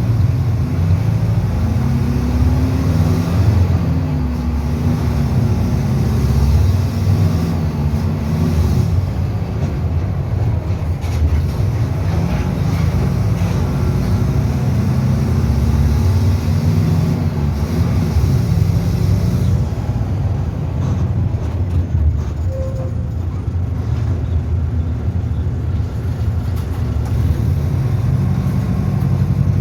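Mercedes-Benz OF-1722M bus's diesel engine running, its pitch drifting up and down as the revs change.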